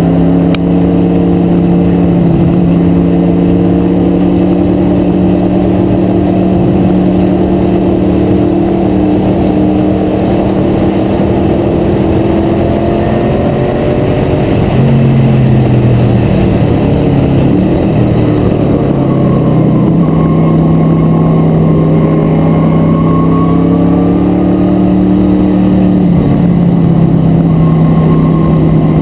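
The 1985 Buick Somerset TransAm/IMSA race car's engine running hard at high revs under race load. About halfway through the revs drop, as when braking and downshifting for a corner, then climb again, with another dip and rise near the end.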